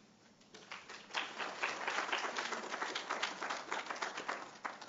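Audience applauding at the end of a talk. The clapping starts scattered about half a second in, fills out into steady applause, then thins out near the end.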